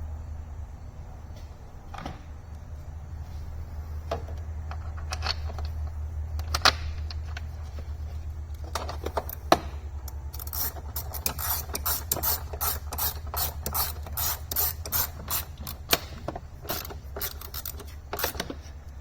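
Ratchet wrench clicking in a quick run of strokes through the second half, after scattered clicks and knocks of parts being handled, over a steady low hum.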